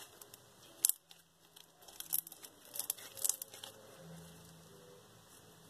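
Foam bead slime squeezed and worked by hand, giving faint sharp crunching crackles: one about a second in, then clusters of them between two and four seconds in, after which only a faint steady hum remains.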